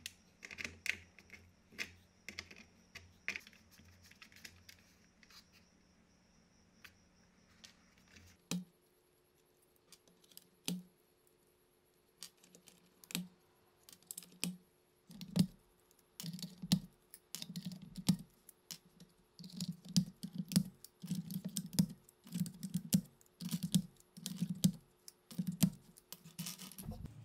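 Keycaps being pried off an IBM Model F XT buckling-spring keyboard one after another: a run of sharp plastic clicks and snaps that come faster and closer together after about fifteen seconds. Before that, for roughly the first eight seconds, fainter metallic clicks as a small wrench twists the metal tabs holding the keyboard's circuit board.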